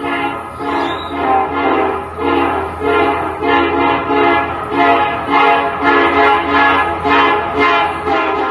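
Train passing over freshly ground rail, the wheels setting up a loud musical whine on the rail that pulses about twice a second over a low hum.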